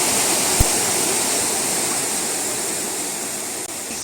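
Waterfall rushing, a steady even sound of falling water that eases off slightly near the end. A brief low thump comes about half a second in.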